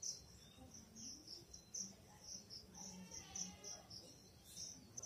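Faint background chirping: a short high chirp at one pitch repeated several times a second, as from a cricket.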